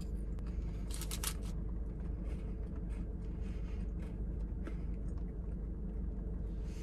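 Chewing and crunching a mint dark chocolate Kit Kat wafer bar, with a quick cluster of sharp crunches about a second in and a few fainter crunches after, over a steady low hum.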